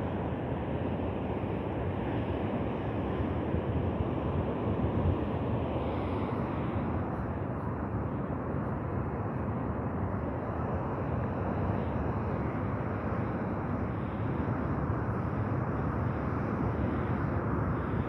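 Steady outdoor rumble of wind and sea surf, with wind buffeting the microphone.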